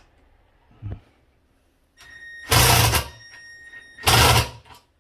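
Newly tightened toilet seat being rocked and handled to test it: two loud bursts of knocking and rattling about a second and a half apart, after a single soft thump, with a faint steady whine between the bursts.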